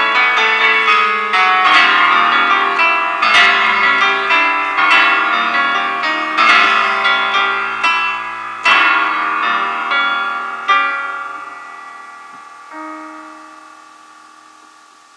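Solo piano playing a slow, expressive passage, notes and chords struck one after another. It ends on a final chord about eleven seconds in and one softer note shortly after, which ring out and fade away.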